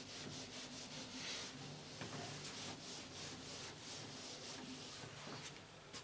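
Whiteboard eraser rubbing across a whiteboard in repeated faint wiping strokes, clearing off written working.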